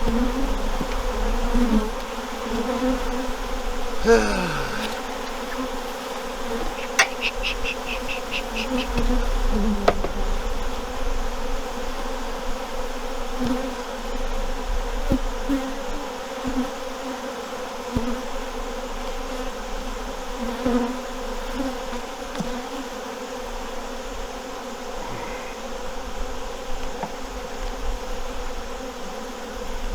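Honeybees buzzing around an open hive: a steady hum, with single bees swooping close past the microphone now and then, one clearly about four seconds in.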